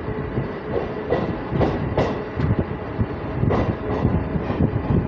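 MMTS electric local train running, heard from the side of the coach: the wheels clack over rail joints and points in irregular knocks over a continuous rumble, with a faint steady hum.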